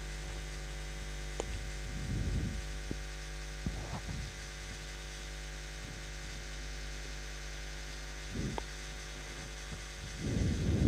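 Steady low electrical hum, with a few soft low bumps and two faint clicks of handling, the loudest bump near the end.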